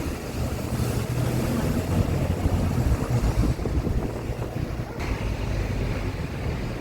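Tour riverboat's engine running steadily, a low rumble under an even wash of noise.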